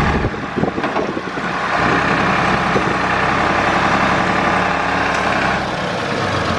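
Manitou MC 40 rough-terrain forklift's diesel engine running as the machine moves slowly. Its note grows stronger about two seconds in and eases slightly near the end.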